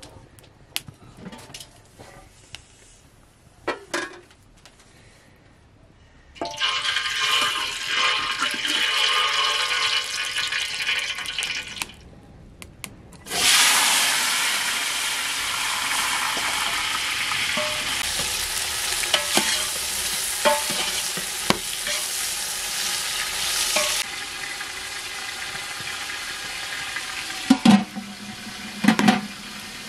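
Food sizzling as it fries in hot oil in an aluminium pot over a wood fire. The sizzle starts about six seconds in, stops briefly, then comes back louder and eases off near the end, with a ladle clinking against the pot now and then.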